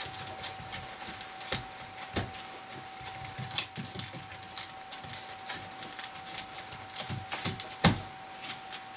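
Handling noise as a hook-and-loop sanding disc is lined up and pressed onto a random orbit sander's pad: scattered light clicks and taps, a few sharper knocks, over a faint steady tone. The sander is not running.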